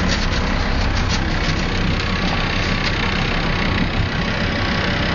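Small motorboat's engine running steadily while under way, a loud constant low hum.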